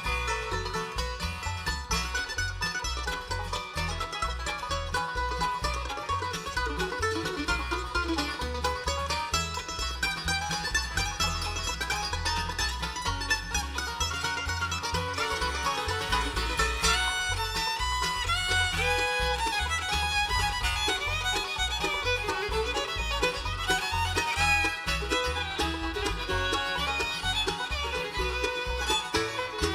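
Bluegrass band playing an instrumental break between verses: banjo and fiddle over guitar, mandolin and bass, with the bass keeping an even pulse.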